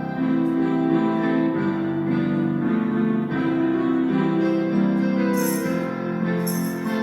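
Slow piano music: held chords that change about every second. Short bursts of hiss come in a few times near the end.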